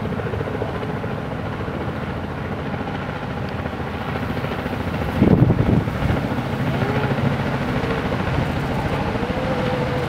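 Helicopter rotor chopping steadily overhead, a continuous pulsing drone, with a brief louder rush about five seconds in.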